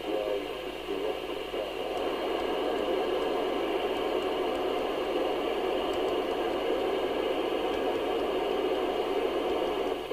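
Steady static and hiss from the loudspeaker of a Midland 2001 FM CB radio (UK CB27/81 model), the receiver listening on the band.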